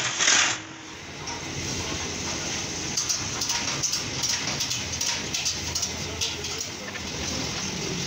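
Arc welding on the seam of a rolled galvanized steel water-heater shell: a steady sizzling crackle with many sharp pops, after a short loud burst at the very start.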